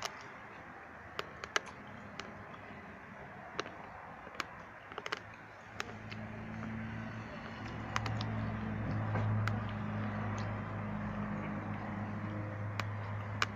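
Low hiss with scattered sharp clicks, then about six seconds in a steady low engine hum comes up and holds.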